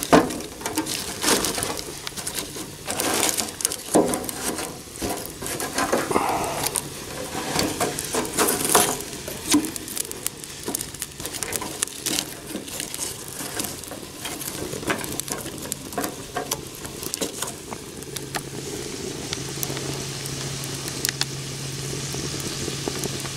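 Sticks of firewood knocking and scraping as they are stacked into a clay rocket stove's feed opening, with the fire crackling. A low steady hum comes in during the last several seconds.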